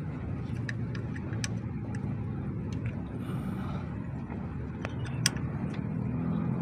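Truck's diesel engine idling steadily, with a few light metallic clicks as an Allen key is worked into the air dryer's governor adjusting screw.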